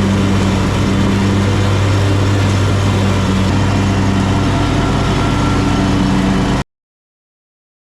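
Exmark X Series mower engine running steadily at a constant speed with its deck cutting through tall, thick grass, then cutting off suddenly near the end.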